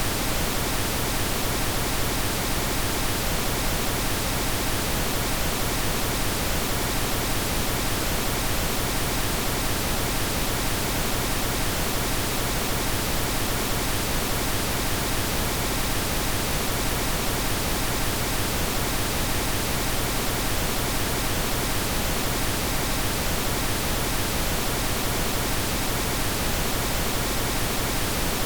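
Steady computer-generated pink noise: an even, unchanging hiss across the whole range.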